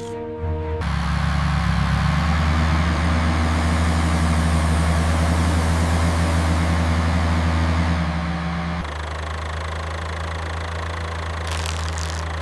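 A vehicle engine sound effect running steadily under load, with a rushing noise over it, until about eight and a half seconds in. It then drops to a quieter, even idle.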